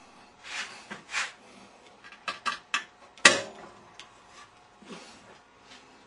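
Metal clicks and clinks as a washer tub counterbalance spring is stretched and hooked into a hole in the steel frame, with a couple of short scrapes near the start and the loudest clank a little past the middle.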